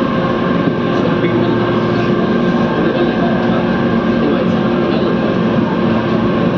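Mumbai Monorail train running, heard from inside the car: a steady running noise with several held whining tones.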